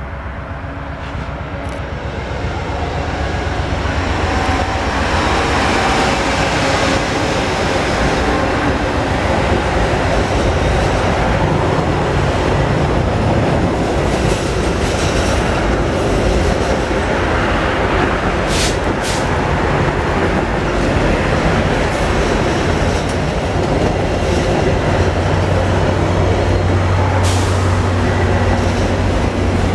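VIA Rail passenger train rolling across a steel girder overpass: a steady rumble and clatter of wheels on the bridge that builds over the first few seconds, with a few sharp clacks along the way and a deeper steady hum joining in near the end.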